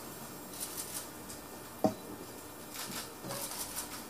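Quiet press-room tone with several short runs of rapid, faint high clicks, like camera shutters firing in bursts. There is also one sharp thump a little before the middle.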